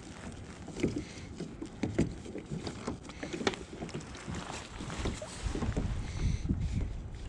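Handling noises in a plastic fishing kayak: scattered small clicks and knocks as a crappie is threaded onto a rope stringer with a metal needle. A low rumble, wind on the microphone, builds up from about five seconds in.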